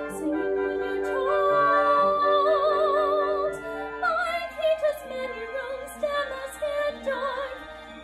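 A woman singing a musical-theatre ballad in a classical, operatic style over instrumental accompaniment. She holds one long note with vibrato for a couple of seconds early on, then moves on through a wavering melodic line.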